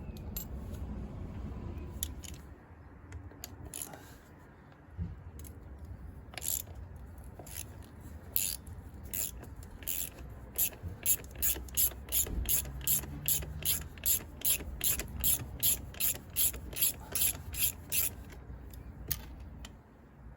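Hand ratchet wrench clicking as bolts are backed out: a few scattered clicks at first, then a steady run of clicks, about two or three a second, through the second half.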